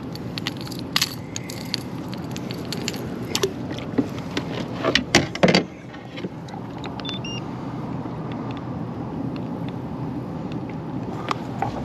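Metal clicks and jangles of fishing tackle and knocks against a plastic kayak as a freshly landed bass is unhooked and handled, with a cluster of louder knocks about five seconds in, over steady wind noise.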